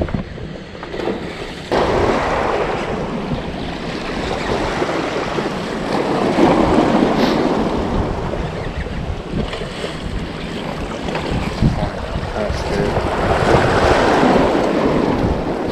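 Waves washing against jetty rocks, swelling and easing every few seconds, with wind buffeting the microphone.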